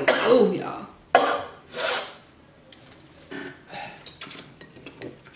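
Close-up eating sounds from a Cajun seafood boil: wet smacking and slurping of sauced crab and shellfish, with a few light clicks of shell. Two louder slurps come about a second and two seconds in, then quieter clicks.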